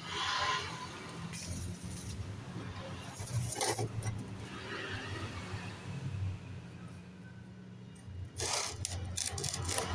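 Light metallic clinks and rattles in a few short bursts, over a steady low hum.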